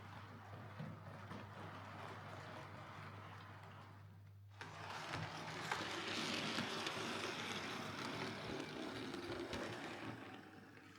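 Hornby Railroad Class 9F OO gauge model locomotive running on the track, its small electric motor and gears whirring steadily. The sound dips briefly about four seconds in, then comes back louder and fades near the end.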